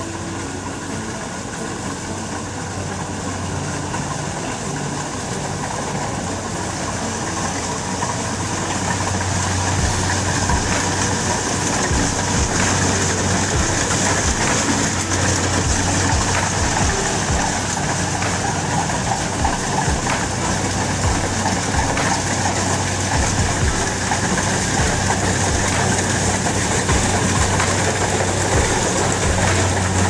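Rice combine harvester running steadily as it cuts through the rice, its engine hum growing louder over the first ten seconds as it comes closer, then holding.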